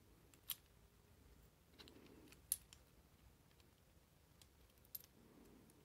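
Near silence broken by a few faint metallic clicks, the loudest about halfway: a two-jaw bearing puller being fitted and shifted on a keyless drill chuck.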